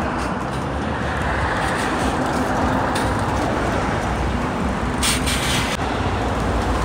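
City bus running, a steady engine and road rumble with a short hiss about five seconds in.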